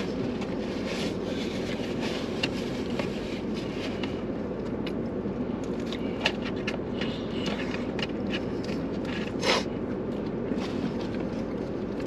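Steady low hum inside a car's cabin, with scattered clicks, rustles and scrapes of paperboard takeout containers and a fork being handled while eating, and one louder rustle about nine and a half seconds in.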